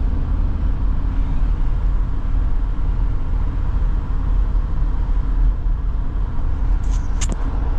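A vehicle driving on a road: a steady, loud low rumble of engine and road noise.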